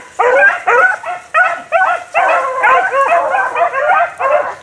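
Dogs yipping and barking in a rapid, excited series of high, rising-and-falling yelps, several voices overlapping.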